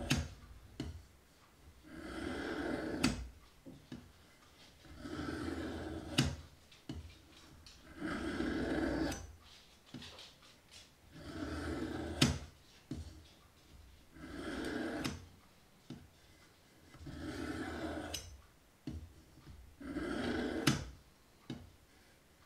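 A kitchen knife being sharpened on a guided sharpening system: the stone on its guide rod rasps along the blade in slow strokes, about one every three seconds, each ending in a sharp click.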